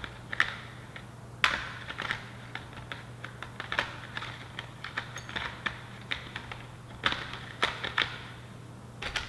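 Irregular plastic clicks and knocks, with a few louder snaps, as a battery pack is fiddled and pushed into the handle of a Jigsaw massage gun without finding how it fits. A steady low hum runs underneath.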